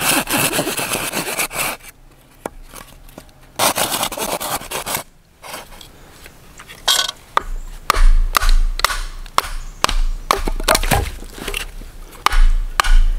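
Knife blade scraping and shaving wood in quick, dense strokes, broken by short pauses, then a run of sharp knocks and taps on the wood in the second half.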